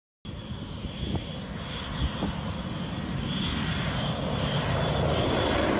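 B-2 Spirit stealth bomber flying low overhead, the rushing jet noise of its four turbofan engines with a faint high whine. It starts after a brief silence and grows steadily louder as the bomber approaches.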